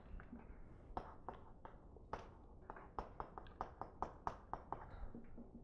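Chalk writing on a chalkboard: a quick, irregular series of faint taps and clicks as letters are written.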